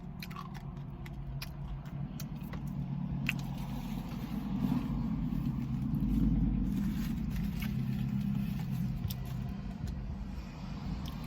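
Car engine rumbling, swelling to a peak about halfway through and easing off again, with a few small clicks and scrapes in the first few seconds.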